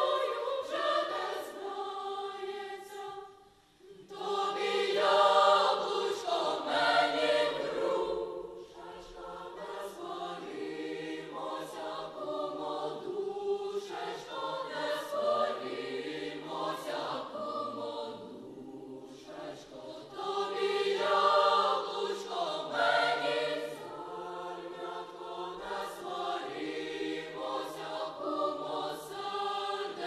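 Children's choir singing, with a short break about three and a half seconds in before the singing starts again.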